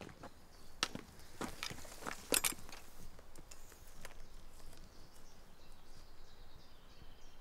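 A few crackling, rustling steps on the leafy forest floor in the first two and a half seconds, then quiet woodland ambience.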